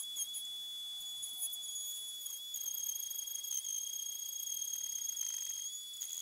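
Steady high-pitched whine of power-tool motors while a square walnut blank, spun by a cordless drill, is fed through a router-table dowel jig and rounded by the router bit.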